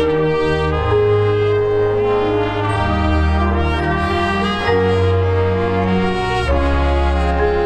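Marching band brass playing loud held chords over deep bass notes, the chord changing several times.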